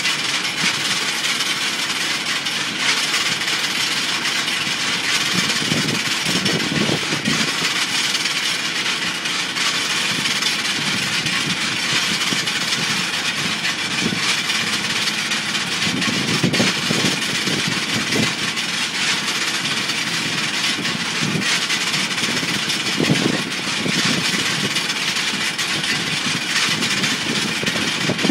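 Steady rushing, hissing aircraft noise heard from inside the cabin of a parked Boeing 747, with a lower rumble swelling up three times.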